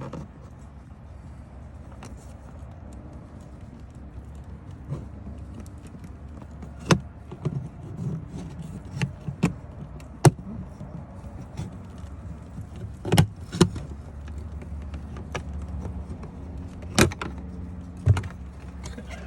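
Scattered sharp plastic clicks and knocks as a Mercedes W211's fuse-box cover is handled and worked open, over a steady low hum.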